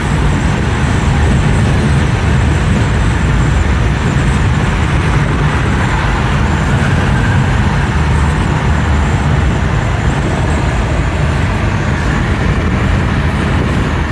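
Steady storm noise: rain and wind rushing on the microphone with a deep rumble and no break in it. No thunderclap is heard.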